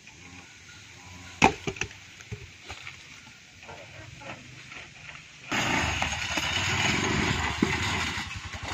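Cashew-wood logs knocking and clattering as they are thrown down from a cargo tricycle's load, with the sharpest knock about a second and a half in. From about five and a half seconds a petrol engine is heard running steadily.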